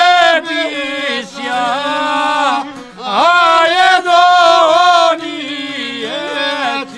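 Men singing a Bosnian izvorna folk song in close harmony, long held notes that bend and slide between pitches, with violins and a šargija (long-necked lute) playing along. A phrase breaks off about three seconds in and a new, louder one begins.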